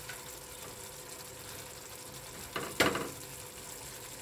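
Potato and dhoka curry simmering in a non-stick pan on a gas stove, a steady soft sizzle and bubbling, with a short louder clatter a little past halfway.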